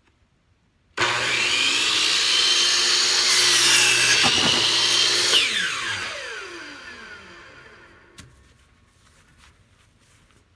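Electric power saw starting up about a second in and cutting through lumber, then released and spinning down with a falling whine that fades over a few seconds.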